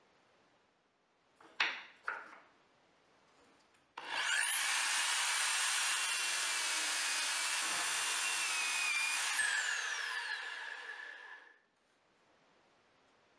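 Electric drill in a drill stand boring a hole in a small plywood block: the motor whines up to speed, runs steadily while the bit cuts, then winds down and stops. Before it, two sharp clicks.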